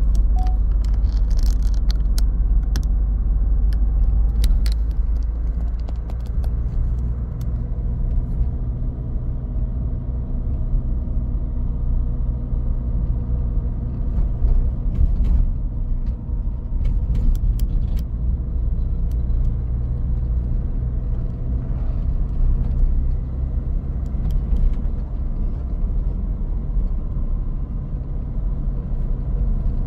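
Road and engine noise inside the cabin of a moving vehicle: a steady low rumble with small clicks and rattles now and then.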